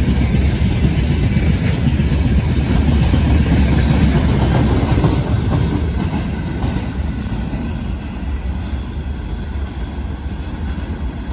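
A freight train of open gondola wagons rolling past: a steady rumble with wheel clicks over the rail joints. The sound fades from about six seconds in as the end of the train passes and draws away.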